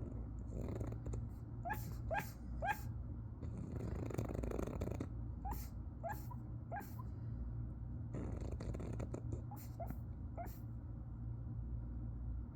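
A pug snoring and giving short, muffled sleep barks in little clusters of about three, with a breathy snore near the middle.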